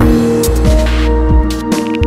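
Psychedelic ambient electronic music: sustained synth tones over a deep bass, with noisy bright swishes in the highs.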